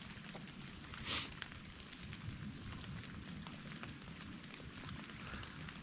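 Steady light patter of falling wet snow, many fine ticks over a soft hiss, with one brief rustle about a second in.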